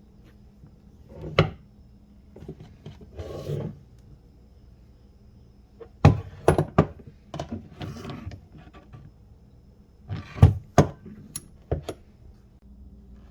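Scattered knocks and clicks of handled metal parts and tools, with a few short bursts of scraping, as the old ratcheting brace is worked on by hand.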